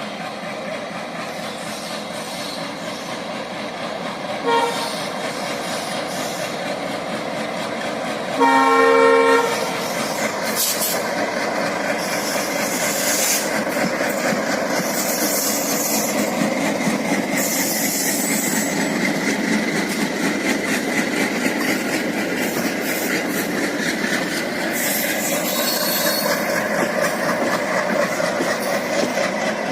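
Indian Railways MEMU electric multiple unit train sounding its horn, a short toot and then a louder blast of about a second, followed by the steady running noise of the train's wheels on the rails with clickety-clack.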